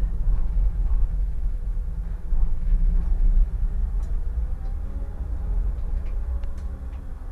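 Solaris Tramino S105p tram running on its rails, heard from the driver's cab: a steady low rumble of wheels and running gear with a few faint clicks. From about halfway through, a faint whine slowly falls in pitch and the rumble eases off.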